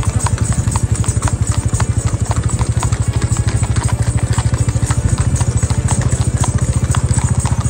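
An engine running steadily with a fast, even pulse, with scattered light clicks over it.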